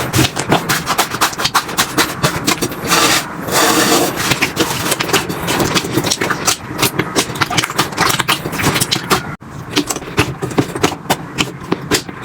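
Slime being pressed and squished by hand, giving a fast, uneven run of crackling clicks and pops, with a brief break about nine seconds in.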